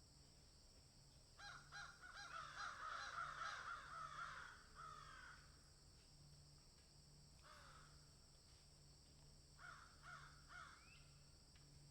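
A flock of crows cawing in agitation. Many harsh calls pile up in a dense burst from about a second and a half in, one lone caw comes in the middle, and a short run of caws follows near the end.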